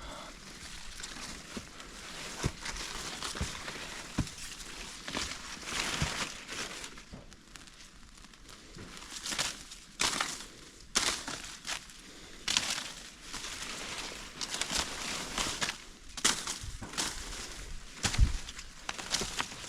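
Footsteps crunching and rustling through dry leaves and brush on a steep trail: irregular crackly strokes, several louder ones close together in the second half.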